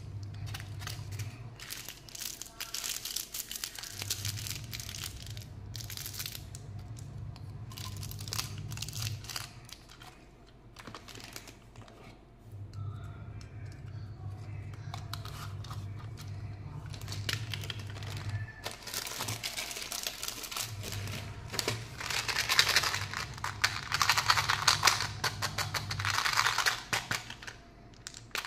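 Hands handling plastic candy toys and packaged sweets: taps and clicks of hard plastic and the crinkle of plastic packaging, denser and loudest a few seconds before the end. A low hum comes and goes underneath.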